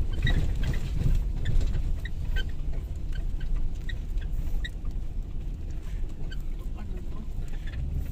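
Vehicle engine and road rumble while driving slowly over a rough track, with scattered short high squeaks or chirps over it.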